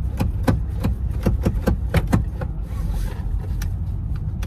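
Inside a moving car: steady low engine and road rumble, with a run of sharp clicks or taps, several a second, through roughly the first half.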